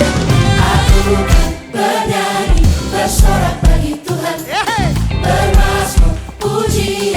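Worship choir singing an upbeat praise song with a full band, drum kick thumps steady underneath. A brief sliding note rises and falls about four and a half seconds in.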